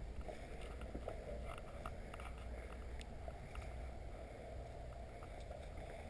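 Steady low rumble of wind on the microphone, with a few faint ticks and rustles.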